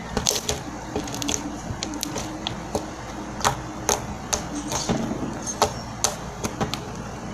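Slime being squeezed and stretched by hand, giving irregular clicks and pops, about two or three a second.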